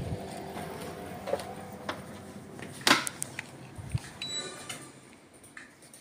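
Old Elektroclima split air conditioner running faintly and fading away, with a few sharp clicks, the loudest about three seconds in.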